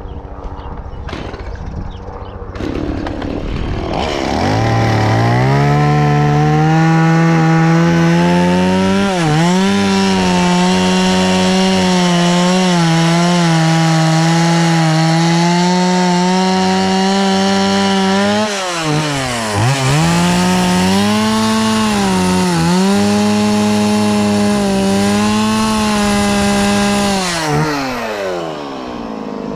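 Chainsaw cutting into a redwood log. It idles, revs up to full throttle about four seconds in and holds there through the cut, with the revs dipping briefly a few times, once deeply around the middle. Near the end it drops back to idle.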